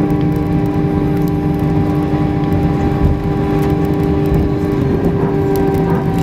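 Airbus A319 cabin noise during the landing rollout: a steady low rumble of the wheels on the runway under the engines' hum, with several steady whining tones. Two of the tones cut out near the end.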